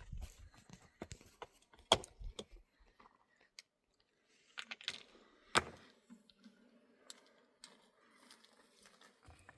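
Scattered clicks and light knocks of objects being handled, with two sharper knocks about two seconds in and just past the middle.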